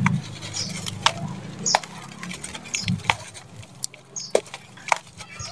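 Dry sand-cement chunks crunching and crumbling in bare hands, with gritty pattering and scattered sharp crackles as the grit falls into a plastic bowl.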